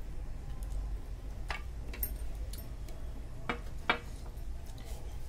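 Light clicks and taps of a drinking glass and a plate on a table during a meal, a few scattered strikes with the two clearest close together a little past the middle, over a low steady hum.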